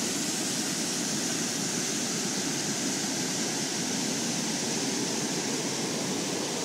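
Steady rushing of a river waterfall pouring over rocks into a pool, an even hiss without breaks.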